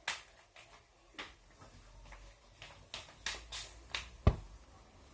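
About a dozen irregular sharp clicks and taps, with a heavier knock about four seconds in.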